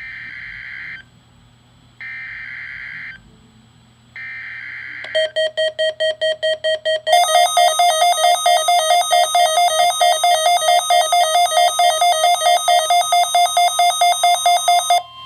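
Three one-second bursts of NOAA Weather Radio SAME data tones, the digital alert header, here for a Required Weekly Test. They are followed by a weather radio receiver's electronic alarm, beeping rapidly and becoming louder and fuller about two seconds after it starts.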